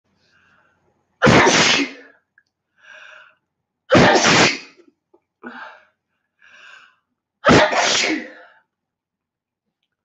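A woman sneezing three times in a row, each sneeze a loud sudden burst about a second long, with quieter short voiced breaths between them.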